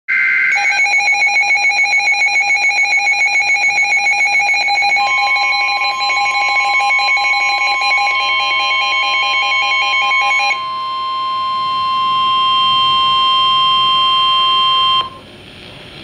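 NOAA weather radio receiver sounding its rapid pulsing alert alarm for a severe thunderstorm warning. About five seconds in, the broadcast's long steady weather alert tone joins. That tone carries on alone after the pulsing stops about ten seconds in, then cuts off sharply near the end.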